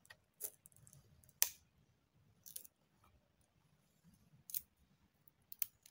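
Knife blade shaving thin curls off a fatwood stick: about six short, sharp scraping strokes at uneven intervals.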